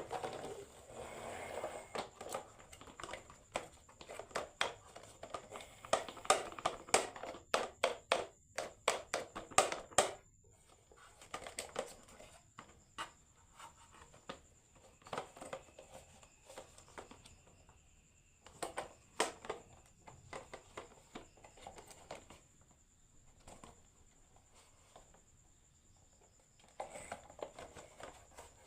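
Marbles rolling and clattering down a HABA marble run, a quick run of clicks and knocks over a rolling rumble. It is busiest in the first ten seconds, then thins to scattered clacks, with short flurries about two-thirds of the way through and near the end.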